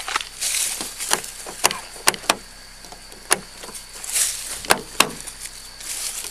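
Irregular sharp clicks and knocks with rustling between them: hands working at a car's door and window frame, trying to get the door open.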